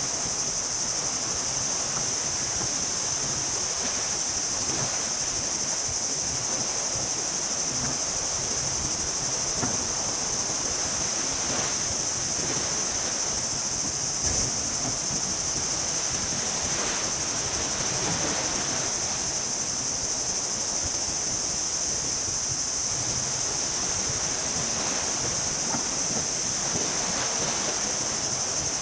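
Surf washing ashore under a steady, high-pitched insect chorus, with one light knock about halfway through.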